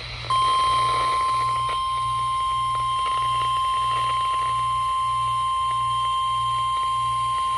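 NOAA Weather Radio warning alarm tone: a single steady, loud beep at about 1050 Hz that starts just after the beginning and holds unbroken. It signals that a new weather warning is about to be broadcast.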